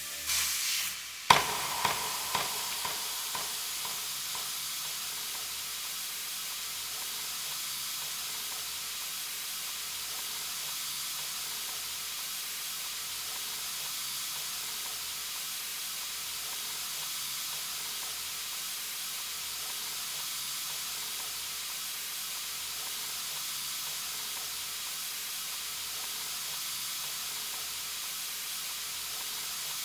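Steak frying in a pan: a steady sizzling hiss. About a second in there is a sharp bang, followed by a few fading echoes.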